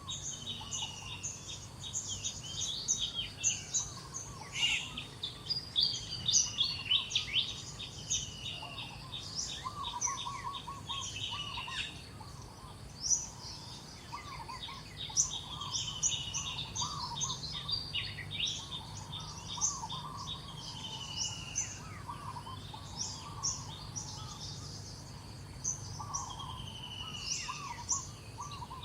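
Several birds chirping and calling at once: quick repeated high chirps, short falling whistles and lower warbled calls overlapping without pause, over a steady low hum.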